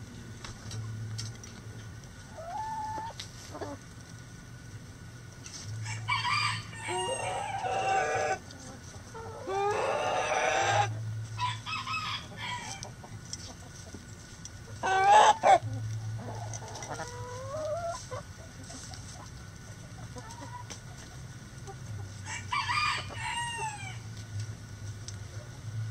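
Backyard chicken flock: hens clucking with short rising and falling calls, and roosters crowing several times, the longest crows about a quarter of the way through and again near the end. One short, loud call comes about midway.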